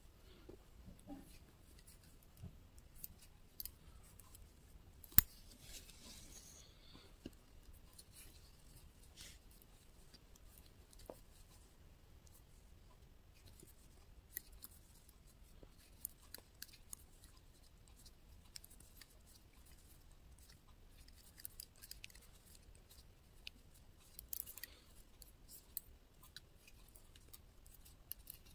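Thin metal double-pointed knitting needles clicking and tapping against each other as stitches are knitted, in faint, irregular ticks. One sharp, louder click comes about five seconds in.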